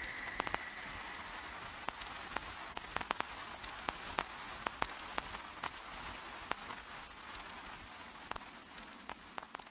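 Rain: an even hiss with scattered louder drops landing a few times a second, slowly fading out.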